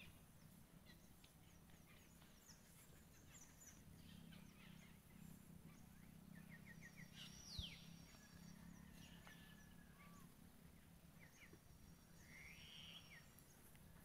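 Near silence with faint, scattered bird chirps, short trills and whistles, including a falling whistle around the middle and a rising call near the end, over a low steady hum.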